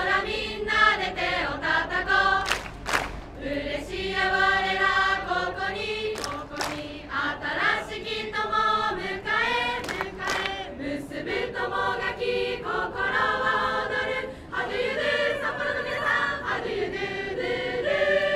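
A group of voices singing together in unison, in held sung phrases.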